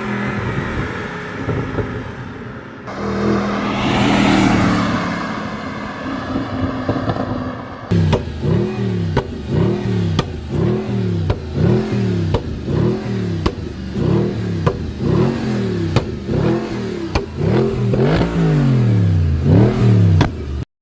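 Audi R8 engine revved repeatedly: one longer rev rising and falling, then from about eight seconds in quick blips about once a second, each followed by sharp pops and crackles from the exhaust as the revs drop. The crackling comes from engine software programmed for pops and crackles on the stock exhaust. It cuts off suddenly near the end.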